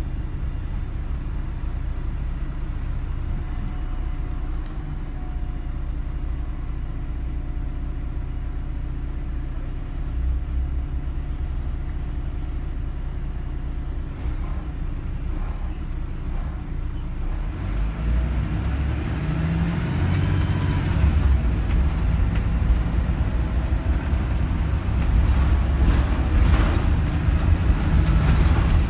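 MAN 14.240 bus's six-cylinder diesel engine heard from inside the saloon, running steadily at first. From about two-thirds in it works harder and gets louder as the bus accelerates, with a drivetrain whine that rises and falls.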